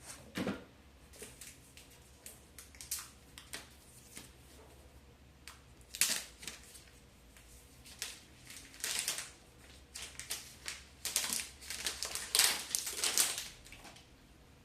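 Phone packaging being handled and opened: a run of short crinkling, rustling and tapping sounds, busiest a few seconds before the end.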